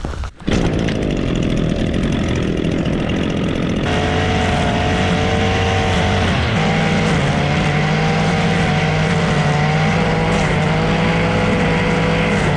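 Echo gas trimmer's two-stroke engine running at high speed while cutting brush, its pitch dipping briefly about six seconds in.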